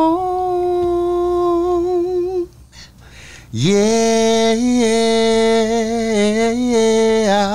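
A man singing a cappella, holding two long notes with vibrato. A short pause comes between them, and the second note slides up into place.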